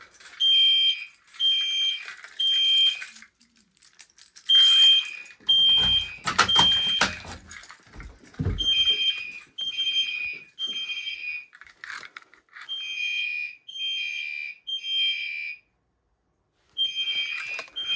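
Fire alarm horns sounding the temporal-three evacuation pattern: three short blasts, a pause, then three more, over and over, set off by a manual pull station. A few knocks and thumps come in between about five and nine seconds in.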